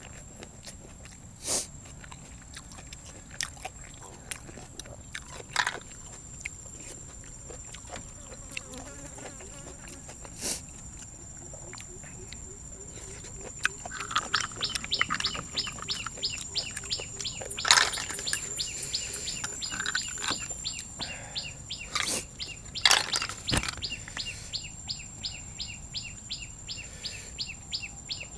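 Eating sounds: a few sharp clicks and knocks, then from about halfway rapid crunching chewing of raw vegetables and boiled snails, over a steady high insect drone.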